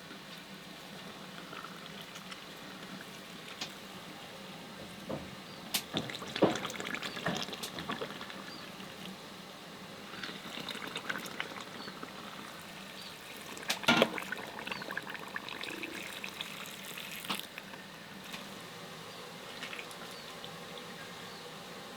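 Water splashing and pouring over a steady hiss, with scattered knocks and clinks, the loudest about six and fourteen seconds in.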